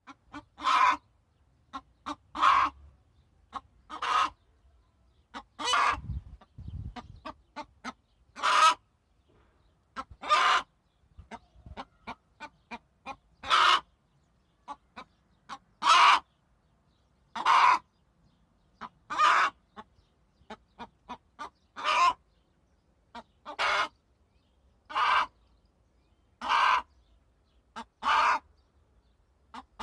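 A hen calling over and over, one loud call every one and a half to two seconds, with soft short clucks in between.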